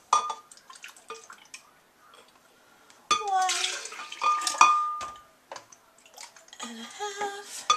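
Fat-free milk poured from a plastic gallon jug, glugging as air gurgles back into the jug, in a longer pour about three seconds in and a shorter one near the end, with a few light clinks and knocks.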